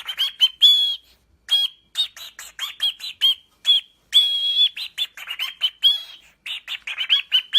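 A parrot calling in a rapid string of short, high chirps and whistles, some notes held a little longer, the longest about four seconds in.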